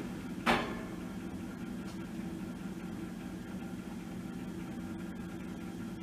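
Grapple loader truck's diesel engine running steadily as its hydraulic knuckle boom swings, with one sharp loud clunk about half a second in.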